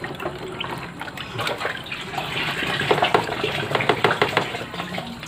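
Lele catfish thrashing in a crowded plastic tub of water: an irregular run of small splashes and sloshing.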